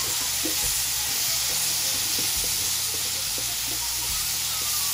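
Diced carrots and potatoes sizzling steadily in a smoking-hot stainless steel pan as metal tongs stir them.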